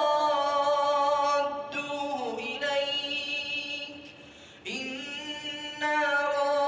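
Quran recitation: a single unaccompanied voice chanting in long, drawn-out melodic notes that glide between pitches, with a brief breath pause about four seconds in.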